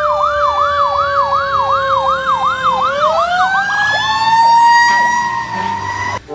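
Ambulance siren: a fast yelp sweeping up and down about three to four times a second over a steady siren tone. About three seconds in the yelp stops and the steady tone rises in pitch and holds until it cuts off abruptly near the end.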